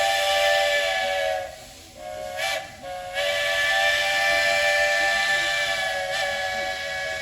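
Buckeye three-chime steam whistle on a steam locomotive sounding its chord with a hiss of steam. A long blast stops about a second and a half in, a short toot or two follows, then another long blast runs on.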